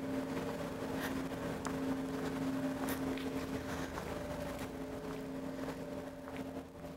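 Steady machine hum of a few even tones, with faint footsteps on a hard floor.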